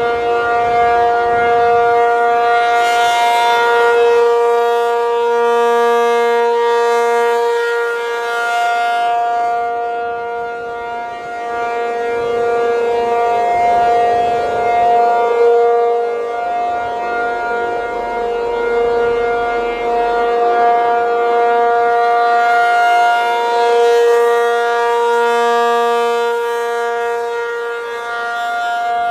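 Rotating outdoor warning siren sounding a steady chord of held tones, swelling louder and brighter twice as the rotating horn sweeps toward the listener and fading between. It is loud enough to overload the recorder, so the sound is harsh and distorted.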